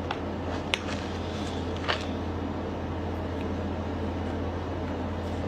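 Steady low mechanical hum, with two short sharp clicks, the first under a second in and the second about two seconds in.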